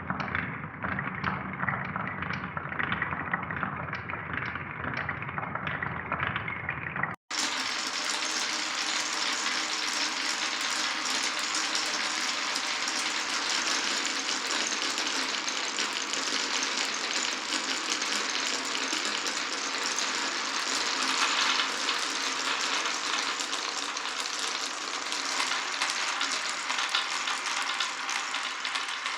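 Many glass marbles rolling and clattering along a wooden and plastic marble-run track. About seven seconds in the sound cuts off for an instant and gives way to a denser, brighter, continuous rattle of many marbles rolling at once.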